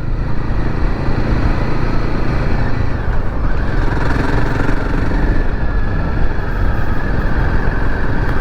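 Royal Enfield Himalayan 450's single-cylinder engine running steadily under way, heard from on the motorcycle.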